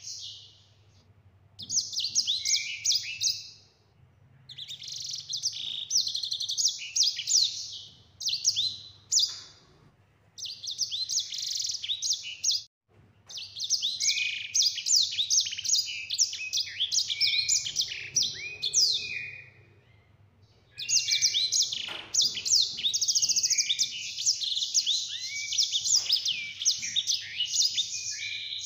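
A caged sanger singing in long, fast rolling runs of high twittering, trilling notes. Each run lasts several seconds, with short pauses between runs.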